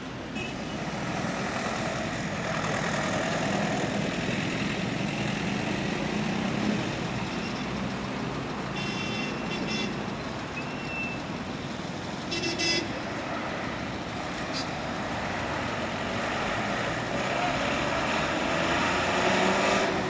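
Steady road-vehicle engine and traffic noise, with two short horn toots a little before halfway and just after.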